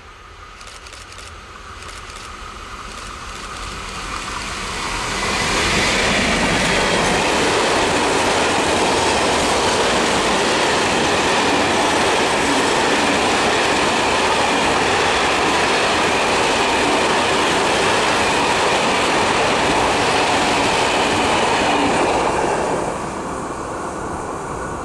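A BB 75000-class diesel-electric freight locomotive approaches and passes, growing louder over the first five seconds. A long train of grain hopper wagons follows with steady, loud wheel-on-rail rolling noise. The noise drops off sharply near the end as the last wagon goes by.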